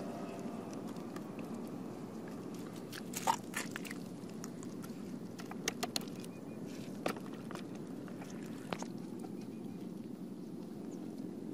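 Hands pressing and packing wet mud, with a few scattered wet squelches and crunches over a steady low background noise.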